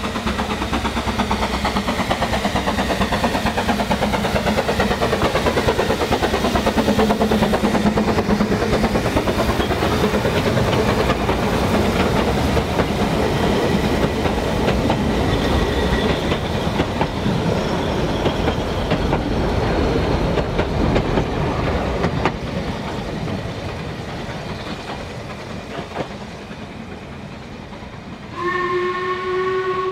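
Narrow-gauge steam train passing close: wheels clattering over the rail joints and carriages rumbling, the sound falling in pitch and fading as the train draws away. Near the end the steam whistle sounds once, for about a second and a half.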